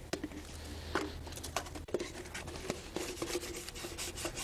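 Oil being rubbed by hand around the inside of plastic concrete cylinder molds, giving irregular scraping and rubbing with light clicks and knocks of the plastic, over a low steady hum.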